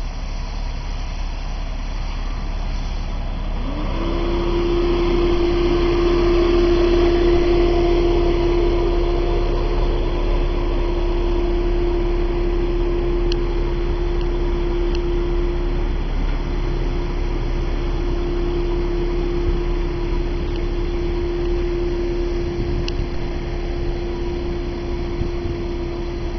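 Freshly rebuilt 3.2-litre flat-six engine of a Porsche Boxster S running at idle, a steady low rumble. About three and a half seconds in, a whine rises and then holds at one steady pitch.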